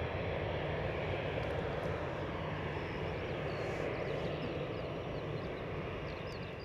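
Jet engines of an easyJet Airbus A320-family airliner climbing out after takeoff: a steady roar that fades slightly as the aircraft moves away.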